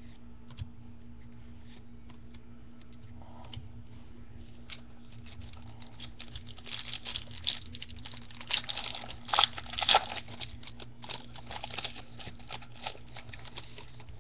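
A trading-card pack wrapper being torn open and crinkled, with the cards inside shuffled and clicking. The crackling grows busier and louder in the second half, peaking a little past the middle, over a faint steady hum.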